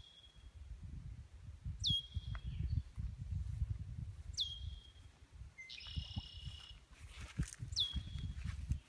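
A bird calling repeatedly: four short whistles, each dropping sharply in pitch and then holding a moment, spaced about two seconds apart, with one buzzier call about six seconds in. A low rumbling noise runs underneath.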